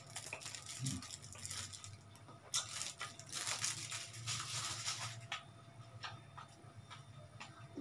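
Thin plastic wrapper crinkling and rustling as an orange is handled and unwrapped, in uneven bursts that are busiest from about two and a half to five seconds in, over a low steady hum.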